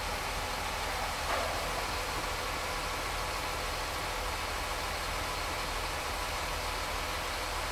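Steady engine noise from heavy equipment on a pile-driving site, with no hammer blows, and one small knock about a second and a half in.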